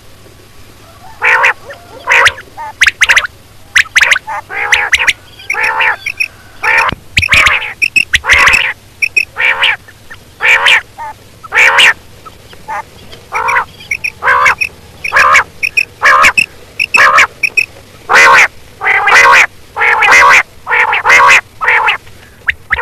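Common quail calling over and over: short notes repeated in small groups, roughly one or two a second, a call recording of the kind played to lure quail.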